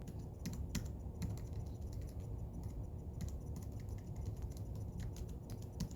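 Logitech Craft keyboard keys being pressed in an irregular run of about a dozen separate taps, the sound of typing and arrow-key presses.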